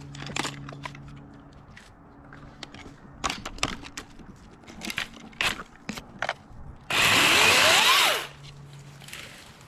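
DeWalt 60V battery top-handle chainsaw run briefly, about a second and a half near the end: its whine rises in pitch, then drops as the trigger is let go. Before it, scattered knocks and scrapes.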